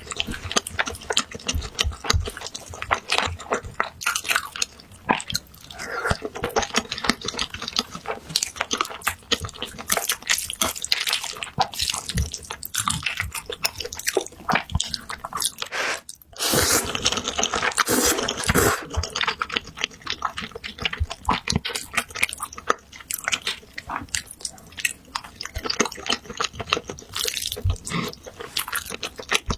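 Close-miked eating of saucy instant noodles, with rapid wet chewing and smacking clicks throughout. About sixteen seconds in there is a brief pause, then a louder, denser stretch of slurping.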